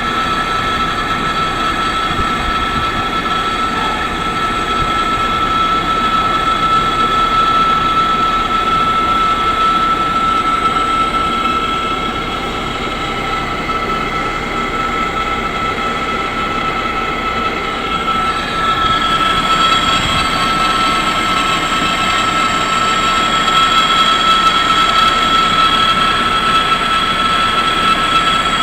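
Metal lathe cutting a 45-degree taper: steady machine noise with a high, constant whine from the cut. The sound shifts a little about two-thirds of the way through and is slightly louder afterwards.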